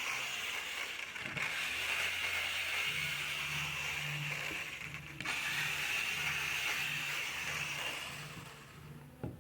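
Electric jigsaw cutting through a wooden board, a steady rattling run of the blade with a low motor hum. It breaks off briefly about a second in and again about five seconds in, and dies away near the end as the cut is finished.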